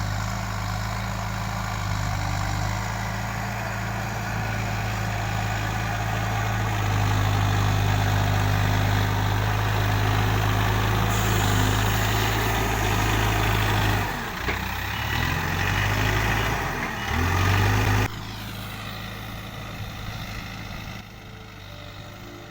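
Backhoe loader's diesel engine running steadily, growing louder about a third of the way in. Its pitch then rises and falls as it is revved, before the sound cuts off abruptly to a quieter background.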